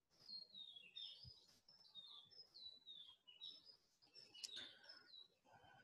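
Faint bird song in the background: a run of short, high chirps, each falling in pitch, repeated one after another.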